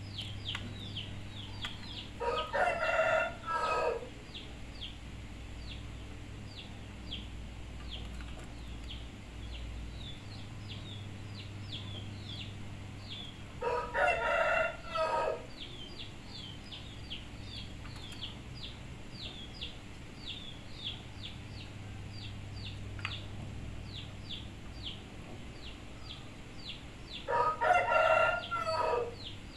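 A rooster crowing three times, each crow lasting about two seconds and coming about twelve seconds apart. Under it runs a steady string of short, high chirps.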